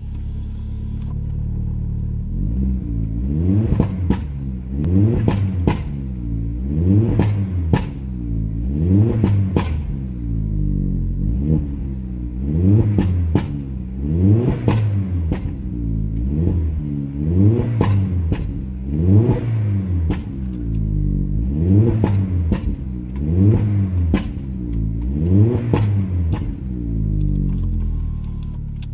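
Turbocharged engine of a Vauxhall Astra H SRi, fitted with a VXR turbo and a decat turbo-back exhaust, idling and then blipped over a dozen times, one rev about every one and a half to two seconds. Each rev rises and falls in pitch and is followed by sharp crackling pops and bangs from the exhaust on the overrun. It settles back to idle near the end.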